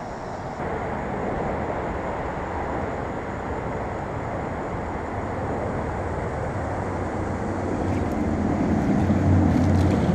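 Steady low rumble of motor traffic, swelling near the end as a low engine hum grows louder.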